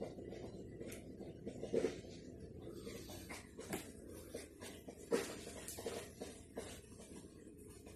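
Faint room ambience: a steady low rumble with scattered soft clicks and taps.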